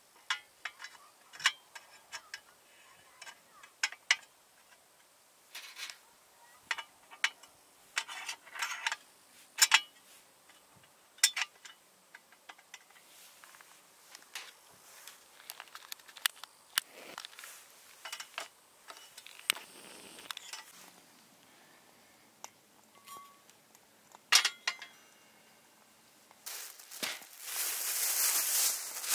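Scattered light clinks and knocks, like utensils or cookware being handled. Near the end a louder steady hiss sets in.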